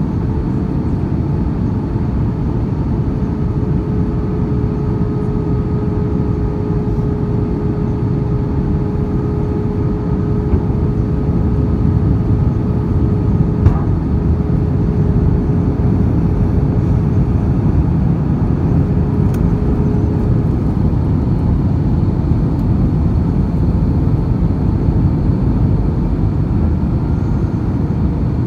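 Cabin noise inside an Airbus A321 airliner descending to land: a steady rumble of airflow and engines with a steady hum that fades out about two-thirds of the way through. It grows a little louder near the middle, where there is a single brief click.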